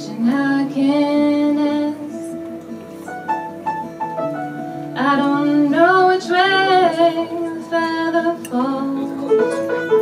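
Live band music: a woman singing lead over acoustic guitars and piano. Her sung phrases break off about two seconds in and come back about five seconds in, while the instruments keep playing.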